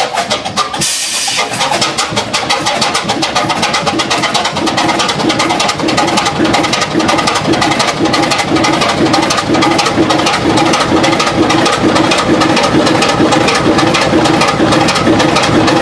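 Allen 6S37 six-cylinder stationary diesel engine, rated 500 bhp at 375 rpm, running up just after starting, with a fast, even beat of firing strokes that grows louder as it settles. A short hiss about a second in.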